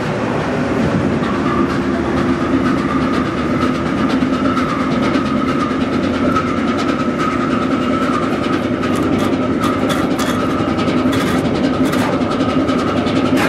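A tugboat's diesel engines running steadily under heavy load as the boat pulls against a line made fast to the quay: a loud, even drone with a low hum and a higher whine running through it. Irregular clicks come over it in the second half.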